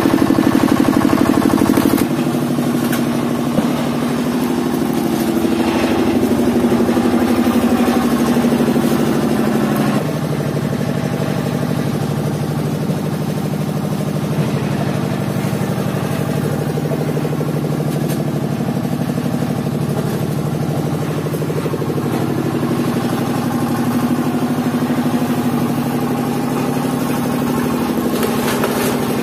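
H.T.C. stationary engine powering a hydraulic wood splitter, running steadily; its note and level shift suddenly about two seconds in and again about ten seconds in.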